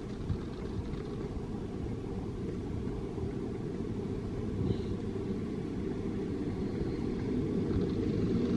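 Low, steady rumble of street traffic, with a car growing louder as it approaches and passes near the end.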